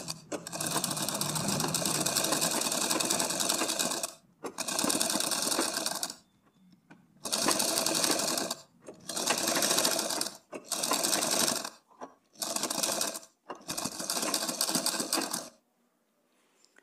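Sewing machine stitching fabric in seven separate runs with short pauses between them, the first run about four seconds long and the others shorter, stopping shortly before the end.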